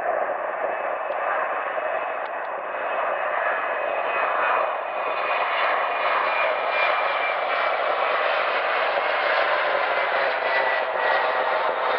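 Twin-engine jet airliner's turbofan engines at high power on the runway: a steady jet noise with a thin whine on top, getting louder over the first few seconds as the plane rolls toward the listener.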